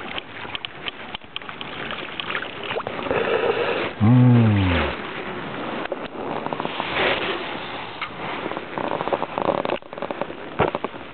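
Fishing tackle handled in a boat: a spinning rod and reel giving scattered clicks and knocks. About four seconds in, a short, loud, low tone falls in pitch.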